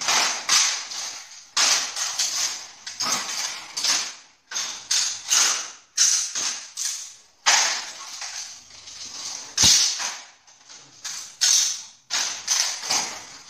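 Rifles being handled in an inspect-arms drill: a run of sharp slaps and metallic clacks, one after another down the line of cadets, as the rifles are brought up and their actions worked.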